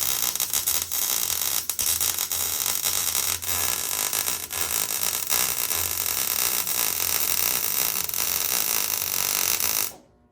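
Electric arc welder running a weld bead on the steel sump guard: a steady, loud crackling sizzle with a low hum beneath it, which cuts off sharply near the end as the arc is broken.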